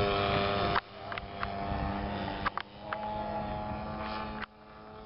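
DLE-55 single-cylinder two-stroke gasoline engine and propeller of a large radio-controlled aerobatic plane running steadily in flight. Its level drops suddenly under a second in and again near the end, with a few sharp clicks in between.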